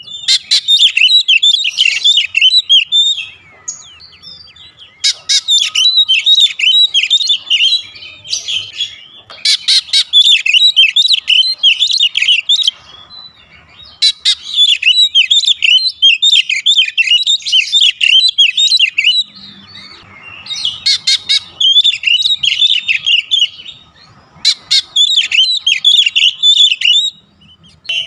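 Oriental magpie-robin singing loudly in phrases of rapid, high chirping and twittering notes, each phrase a few seconds long with short pauses between.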